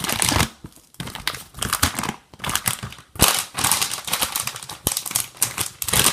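Plastic packaging crinkling and crackling in bursts with short pauses as a squishy's bag is opened by hand.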